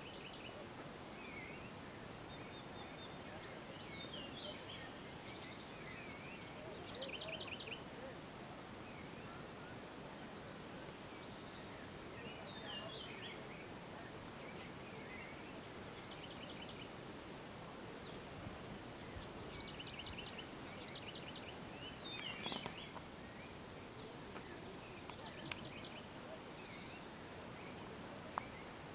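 Block-and-ash pyroclastic flow front moving slowly down a river channel: a steady, low rushing noise, with birds chirping and trilling over it and a few sharp clicks in the second half.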